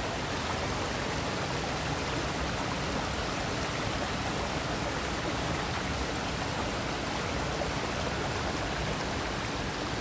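A waterfall and the shallow rocky stream below it, water rushing steadily and evenly.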